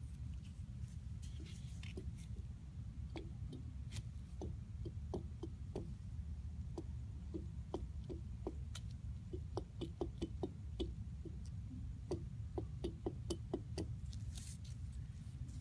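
Toyota FJ Cruiser wheel bearing being worked by hand, giving light, quick knocks that come singly and in short runs, over a steady low hum.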